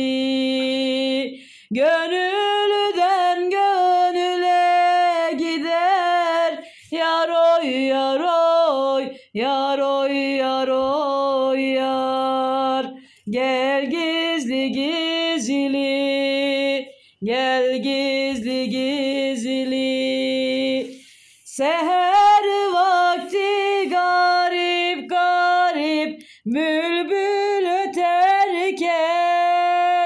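A woman singing a Turkish folk song (türkü) unaccompanied. She holds long notes with wavering ornaments, in phrases of a few seconds each, with short breaks between them.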